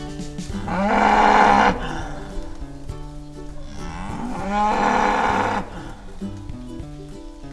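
A cow mooing twice, each moo about a second long, over background music.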